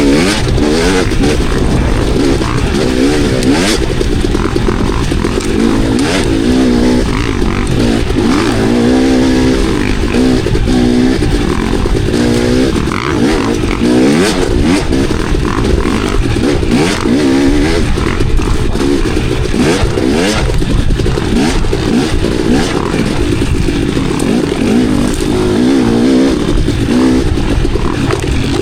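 Dirt bike engine revving up and down constantly as the throttle is worked on a trail ride, with scattered clatter and knocks from the bike over rough ground.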